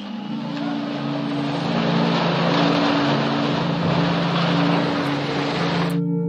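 Rockfall crashing down a cliff into water: a loud rushing noise that builds over the first couple of seconds and cuts off abruptly near the end. Background music with steady held tones plays underneath.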